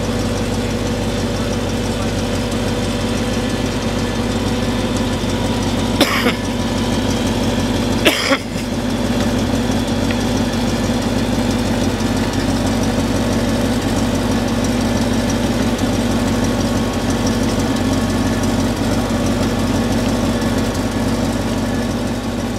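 Fire engine running steadily, pumping water to the hose lines, with two brief clicks about six and eight seconds in.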